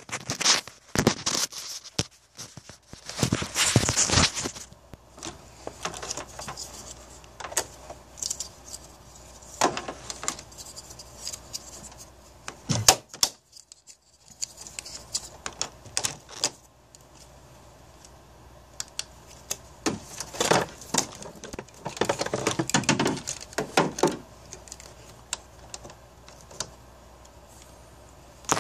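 Clicks, rattles and rustling in irregular bursts, with quieter stretches between: the battery clamps and cables of a portable jump starter being hooked up to a car battery.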